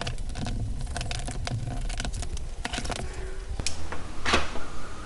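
Small clicks, taps and handling noises of hands working at a glass-fronted motorcycle part, trying to open it, with two sharper clicks around three and a half and four and a half seconds in.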